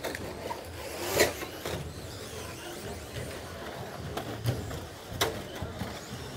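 Electric RC short-course trucks running on an indoor track, their motors and tyres making a steady background noise, with two sharp knocks: one about a second in and one about five seconds in.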